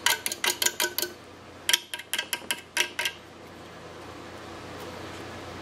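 Sharp, irregular metallic clicks as a metal alligator-clip test lead is tapped again and again against the terminal of an original 1946 Ford horn, in two runs of about a second each. The horn itself does not sound.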